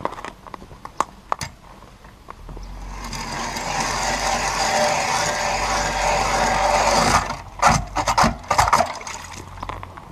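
Hand ice auger boring through the ice of a fishing hole: a steady grinding scrape for about five seconds, then a few sharp knocks as it stops.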